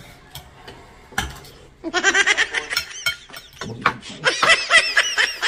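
Two bursts of high-pitched, rapid giggling laughter, the first about two seconds in and the second about four seconds in. Just before them comes a single metal clink of the ladle on the soup pot.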